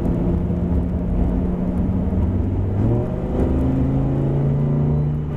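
Lamborghini Huracán LP610-4's V10 engine pulling at a steady pitch. About three seconds in the pitch steps down, as on an upshift, and then climbs slowly as the car accelerates.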